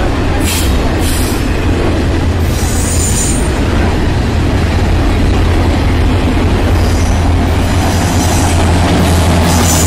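Double-stack container train rolling past: a steady rumble and clatter of steel wheels on rail, with brief high-pitched wheel squeals a few seconds in and again near the end. The low drone of a mid-train diesel locomotive grows louder toward the end as it approaches.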